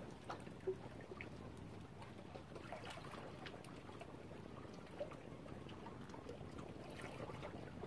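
Small waves lapping and trickling at a lake's edge: a steady, faint wash of water broken by many small splashes.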